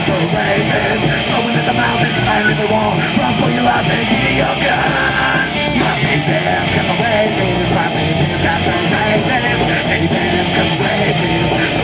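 Live rock band playing loud and steady: electric guitars, bass and drums, with a singer yelling into the microphone.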